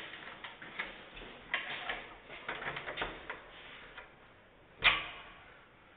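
Small metal clicks and rattles of a lock being worked by hand on a wooden door that will not open, then one loud sharp clack about five seconds in.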